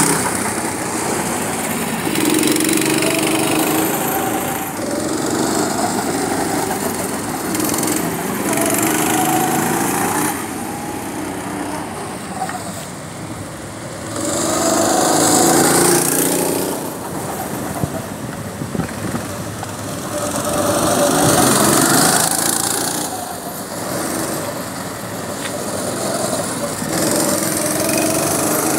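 Go-kart engines revving as the karts drive past, the engine note rising and falling and the sound swelling and fading every few seconds as each kart comes by and goes away.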